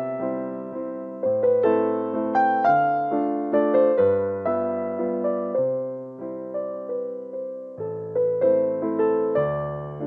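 Background music: a slow keyboard piece in a piano sound, each note struck and then fading, a melody over held low notes.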